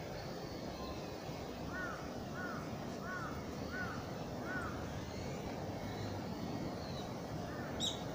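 A crow cawing five times in a steady series, about two seconds in, over a steady low rumbling noise. A short, sharp high chirp sounds near the end.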